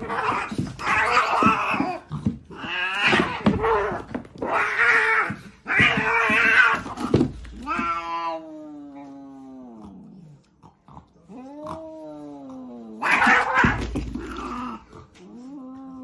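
Two cats fighting: about seven seconds of harsh hissing and screaming as they scuffle, then long drawn-out yowls that sag in pitch, another short burst of hissing about thirteen seconds in, and a lower yowl near the end.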